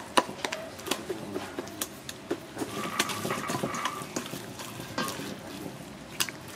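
A metal fork clicking and scraping against a stainless steel bowl in irregular taps, with wet squelching as raw seasoned crocodile meat is turned and pressed by gloved hands.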